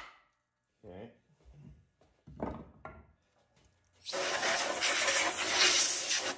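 A hand tool scraping steadily against the cast-iron cylinder block of a Continental Z134 engine at a sleeve bore, starting about four seconds in, after a few faint light clinks.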